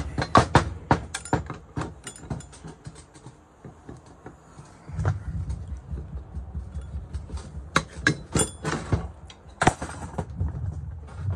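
Metal clinks, clicks and knocks as pliers and gloved hands work the brush-holder ring off the end of a large electric motor and set it down on the bench, with a low rumble underneath from about halfway.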